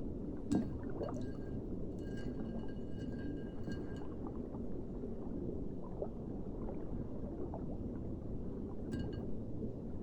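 Water beads being squished and stirred by hand: a steady wet squishing with small clicks. A faint glassy ringing tone comes in about a second in and lasts some three seconds, then returns briefly near the end.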